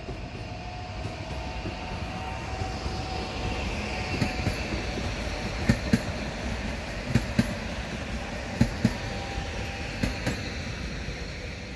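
Passenger train running past close by: a steady rumble with a faint whine that builds as it nears, then paired clacks from the wheelsets, four pairs about a second and a half apart from about halfway on.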